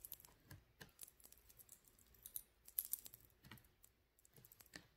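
Faint, irregular small clicks and taps of metal rings knocking against each other as stacked rings are handled on the fingers.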